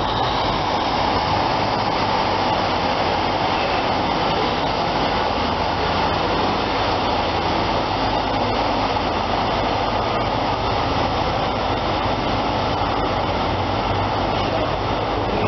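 Diesel trains running at a station platform: a steady, unchanging drone with a low hum underneath.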